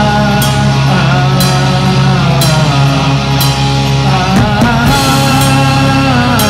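Live rock band playing: electric guitar and drum kit, with cymbals crashing about once a second over held guitar chords.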